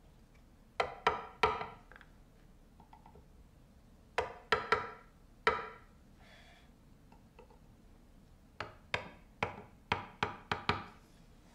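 A wood-carving chisel being struck as it cuts letters into a wooden board: sharp taps in three bursts, about three, then four, then seven in quick succession.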